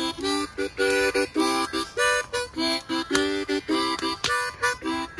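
Harmonica played in short chords, several notes sounding together, in a halting phrase with brief gaps between the notes.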